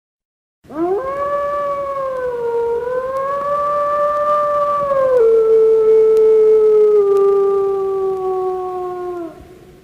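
A wolf howling: one long, loud howl that swoops up at the start and wavers. About halfway through it drops to a lower pitch, then sinks slowly until it stops near the end.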